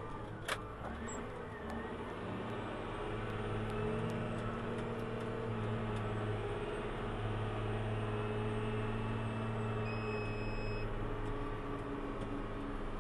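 Caterpillar 966G wheel loader's diesel engine running steadily under load, heard from inside the cab while the loader works its bucket; the engine note grows stronger a few seconds in. A single sharp click sounds about half a second in.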